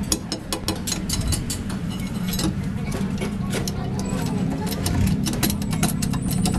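Irregular metallic clicks and knocks of tools working on a truck's underside, several a second, over a steady low engine hum.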